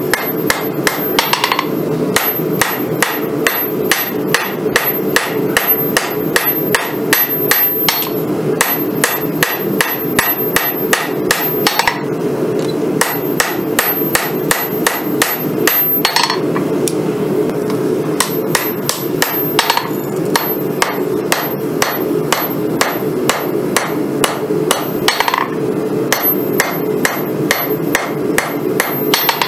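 Hand hammer striking a red-hot San Mai Damascus bowie blade on a steel anvil, forging it to shape in a steady rhythm of about three blows a second, with two short pauses around the middle. A steady low hum runs underneath.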